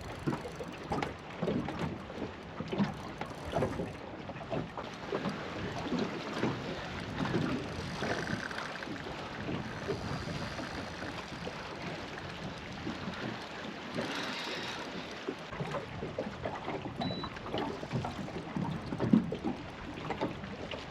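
Water lapping and slapping against a small boat, with wind on the microphone and scattered light knocks and clicks; one louder knock near the end.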